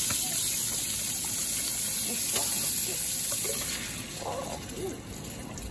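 Sliced sausages sizzling in a hot frying pan with a steady hiss as canned pork and beans are poured over them; the sizzle drops in level about four seconds in.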